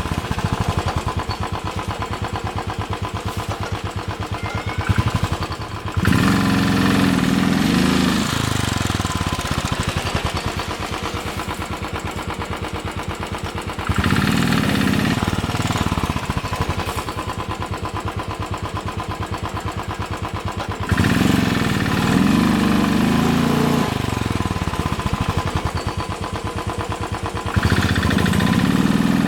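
Royal Enfield Thunderbird 500's single-cylinder engine running with a fast, even beat, revved up in loud surges about four times.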